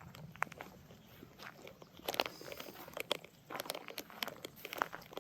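Footsteps of someone walking, with irregular crackling clicks and crunches.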